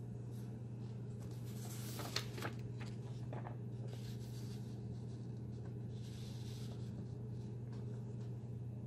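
Sheets of printer paper rustling and crinkling as they are handled and the pages turned, loudest about two seconds in, over a steady low hum.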